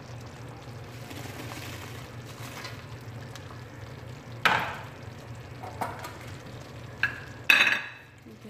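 Fried chicken pieces tipped from a stainless mesh strainer into a pot of thick simmering sauce, over a steady low hum. Sharp metal clanks of cookware come about four and a half seconds in and again near the end, the last the loudest and ringing briefly.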